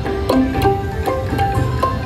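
Slot machine game music: a plucked-string tune of short notes over a steady low hum.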